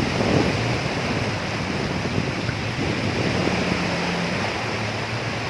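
Sea waves washing onto a beach, with a steady rush of wind on the microphone.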